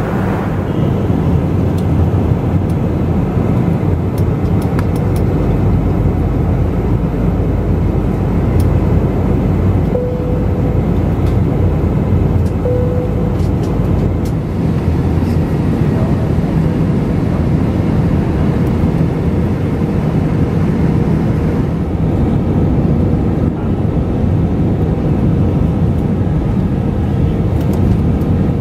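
Steady low rumble of a jet airliner's engines and the rush of air over the fuselage, heard from inside the passenger cabin while the plane descends towards landing.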